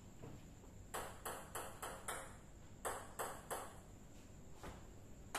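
Table tennis ball ticking sharply off the paddles and the table during a rally: quick runs of clicks about a second and three seconds in, with a last click near the end.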